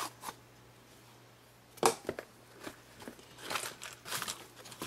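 Small cardboard product box and its plastic packaging being handled. There is a sharp knock a little under two seconds in, then rustling and crinkling of plastic.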